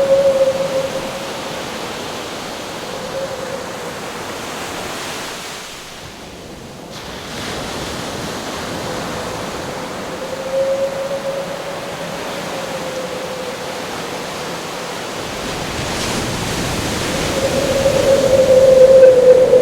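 Surf and howling wind: a steady rush of waves with a one-pitch wind howl that swells and fades, loudest near the end.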